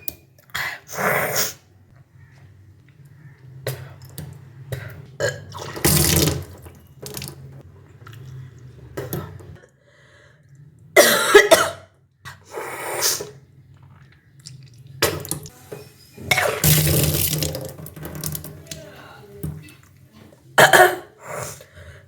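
A person retching and vomiting up the water drunk for kunjal kriya, the intentional yogic stomach cleanse. It comes in about six separate heaves with water splashing out, and coughing and throat clearing in between.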